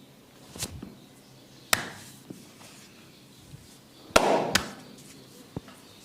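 A barber's hands striking a person's head during an Indian head massage: about six sharp, irregular slaps and snaps, the loudest about four seconds in, followed by another half a second later.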